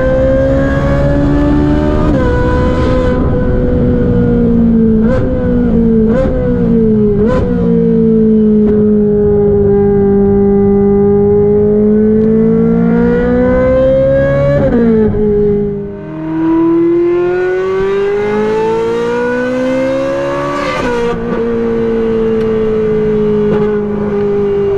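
Ferrari 458 Italia's 4.5-litre flat-plane V8 through a Brilliant aftermarket exhaust, heard onboard at full throttle. The engine note climbs and falls with quick gear changes, drops briefly when the throttle is lifted about two-thirds of the way through, then pulls up through the revs again.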